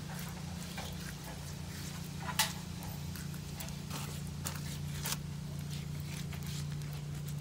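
Soft, scattered dabs and taps of wet Ultracal 30 gypsum being spread onto a mold as its thin first beauty coat, over a steady low hum.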